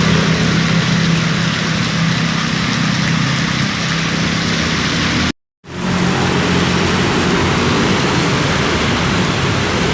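Storm noise: strong wind and rain as a loud, even rushing, with a steady low hum underneath. It cuts out completely for a moment about five seconds in, then resumes.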